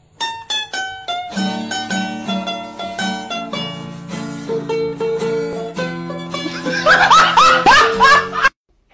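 Upbeat background music of quick plucked notes over lower held notes, with a few rising slides near the end. It cuts off abruptly just before the end.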